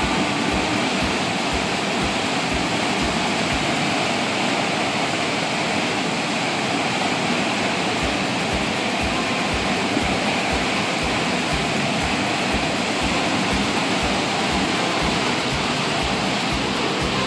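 Swollen brown floodwater rushing out through gates under a wooden dam structure and churning in foamy rapids: a strong, steady roar of water. The water is being let out so the flooded park does not overflow after heavy rain.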